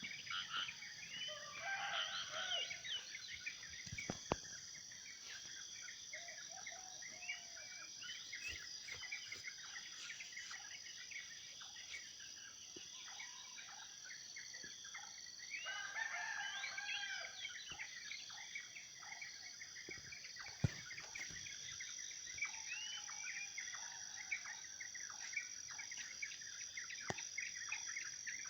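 A dense chorus of many birds chirping and calling over a steady high-pitched insect drone, busiest in a couple of stretches, with a few faint knocks.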